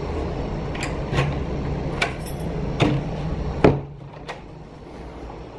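Key being worked in a front-door lock and the knob turned: a series of sharp metallic clicks and rattles. The loudest knock comes about three and a half seconds in, after which the steady background hum drops away.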